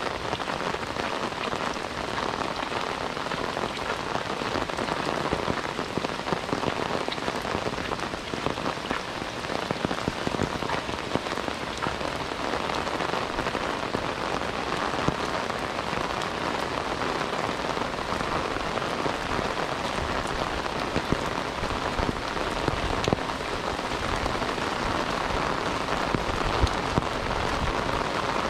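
Steady rain falling, with the ticks of single drops striking close by.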